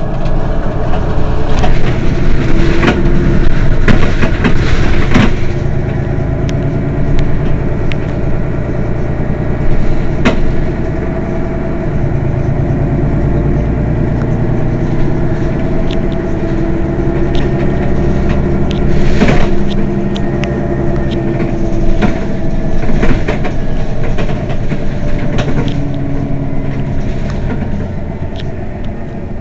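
Mercedes-Benz Citaro city bus engine idling steadily while the bus stands still. A few short, sharp noises stand out over it, the clearest a few seconds in and again past the middle.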